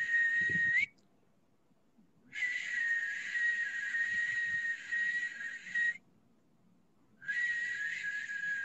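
A steady, high-pitched breathy whistle in three long blows. The first ends with a small upward bend in pitch, and each blow stops abruptly, leaving a pause of about a second and a half before the next.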